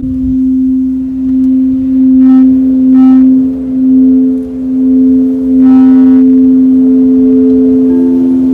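Singing bowls in a sound bath: a low bowl sustains a steady tone that swells and fades in slow pulses, and a higher bowl joins it after about a second and a half. Short, bright metallic strikes ring out about two and three seconds in and again near six seconds, and another bowl sounds near the end.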